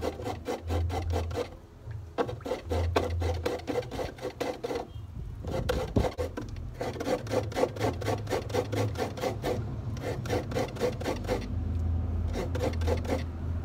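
Coconut flesh being scraped against a grater by hand in quick, repeated rasping strokes, pausing briefly a few times.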